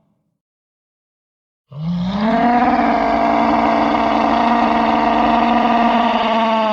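Cartoon kaiju roar sound effect: a long held monster roar that comes in after a short silence, sweeps up in pitch, holds steady, and begins to drop in pitch at the very end.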